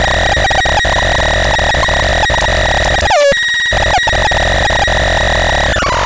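Homemade experimental synthesizer, the Faranosnortron BX 603, sounding a steady high-pitched tone over gritty, crackly noise. About three seconds in the sound sweeps quickly down and cuts out for a moment, then the tone returns; near the end its pitch slides down as the TUNE knob is turned.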